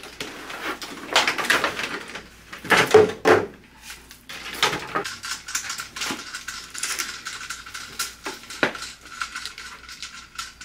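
Nail supplies being unpacked and set down on a table: small plastic jars, bottles and tools clicking and clattering, with plastic packaging rustling.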